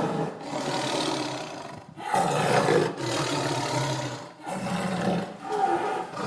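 A tiger roaring several times in a row, with short breaks between the roars.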